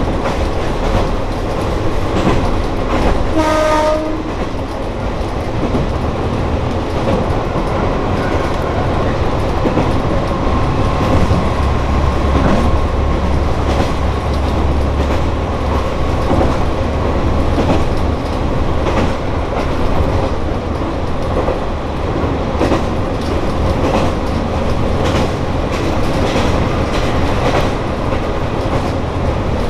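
Kanto Railway Joso Line diesel railcar running, heard from inside the cab: a steady engine drone with the wheels clicking over rail joints. A short horn blast sounds about three seconds in, and the low engine drone grows stronger for a few seconds around the middle.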